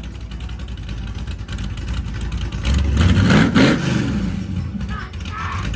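Cammed LS V8 in a G-body Monte Carlo SS idling with a lopey beat. About three seconds in it is revved once, the pitch rising and falling back to idle.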